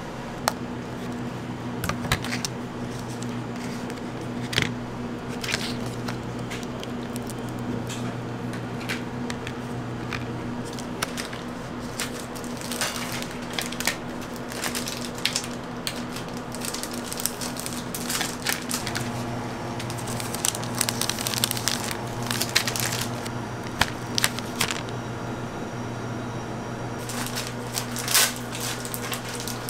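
Clear plastic packaging crinkling and rustling in bursts as chocolate bars are slid into cellophane bags and handled, with a few sharp snaps of white chocolate slabs being broken apart near the start. A steady low hum runs underneath.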